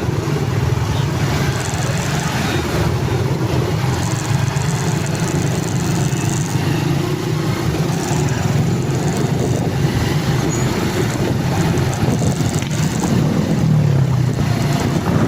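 A motor vehicle's engine running at a steady speed, a continuous low hum with a steady rush of noise over it.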